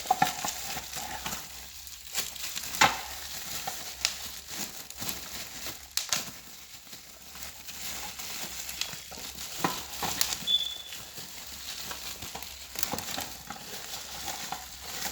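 Plastic wrapping crinkling and rustling as toy parts are unwrapped by hand: an irregular crackle with scattered sharper clicks.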